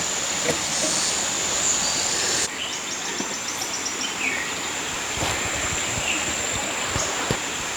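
Outdoor ambience: a steady rushing noise with a thin high steady tone, a few scattered bird chirps and light taps.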